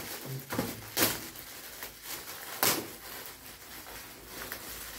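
Metallic gift-wrap paper rustling and crinkling as a present is torn open by hand, with two louder crackles about a second in and again past halfway.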